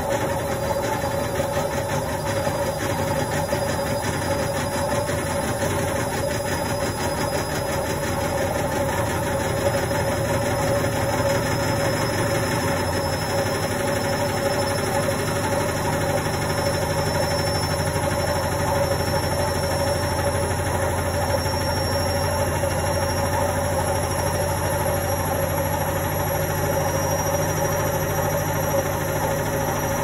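Indesit front-loading washing machine spinning its drum at speed, running noisily with a steady hum and a fine rattling vibration. A faint high whine rises slowly in pitch as the spin speeds up, and a deeper rumble comes in about halfway through.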